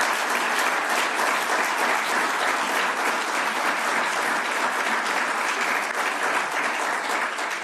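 Audience applauding steadily in a conference room, dying away at the end.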